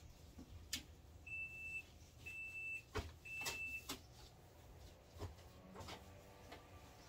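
Refrigerator door-open alarm beeping three times, short even high-pitched beeps about a second apart, signalling that the doors have been left open too long. Light knocks and clatter of containers being handled on the fridge shelves.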